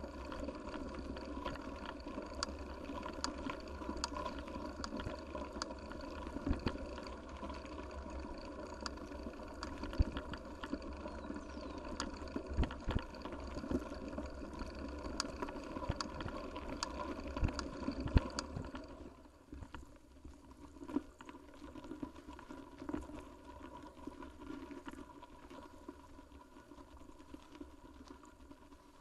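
Mountain bike on a rough trail heard from a camera on the bike or rider: a steady rush with frequent sharp clicks and knocks of the bike rattling over bumps. It gets quieter about two-thirds of the way through, with only scattered knocks after.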